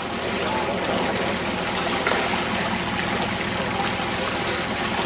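Seawater rushing and splashing along the side of a fishing boat, a steady wash, with a low steady hum underneath.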